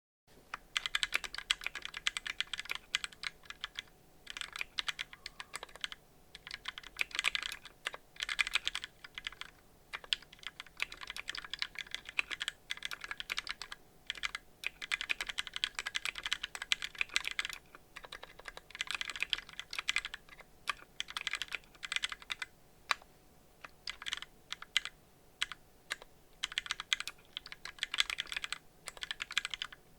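Typing on a Tofu 60% mechanical keyboard with lubed Gateron Yellow linear switches on a brass plate and DCS keycaps: fast runs of keystrokes broken by short pauses between bursts.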